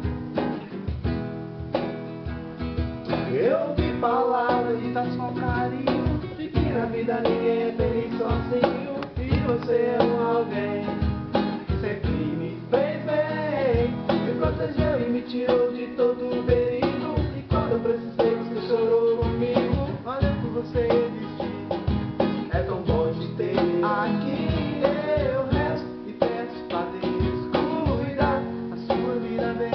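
Acoustic guitar strummed in a steady rhythm, with a young man's voice joining in singing the melody a few seconds in.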